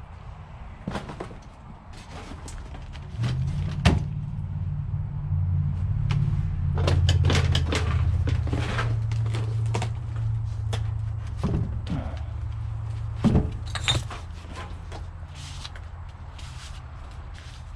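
Scattered knocks and clatter over a low rumble that swells about three seconds in and eases off after about fourteen seconds.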